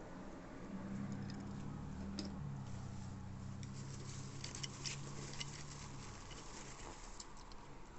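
Light clicks, taps and scrabbling of hands handling small plastic and cardboard diecast-car packaging, with a low steady hum from about a second in until about six seconds.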